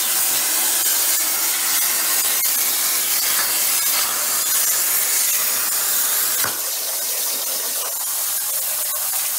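CNC plasma cutter torch cutting 16-gauge sheet metal: a loud, steady hiss of the plasma arc and compressed air. About six and a half seconds in, a sharp click and the hiss gets a little quieter as the torch runs off the edge of the sheet and the cut stops.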